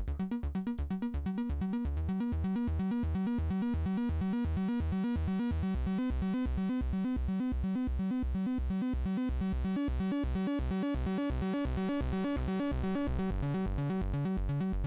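Make Noise 0-Coast synthesizer playing a fast arpeggiated sequence of short, rapidly repeating pitched notes; after about two seconds the notes run together into a more even stream.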